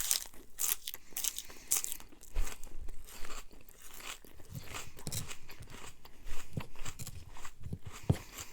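A person eating close to the microphone: crisp crunching bites in the first couple of seconds, then softer chewing.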